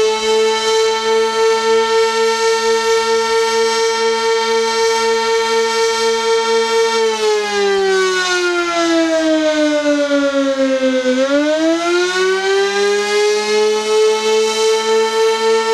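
Sentry 16V-1T-B single-tone electromechanical warning siren sounding the attack signal. A steady high tone drops in pitch about seven seconds in, bottoms out around eleven seconds, then winds back up to full pitch. Its loudness pulses evenly throughout.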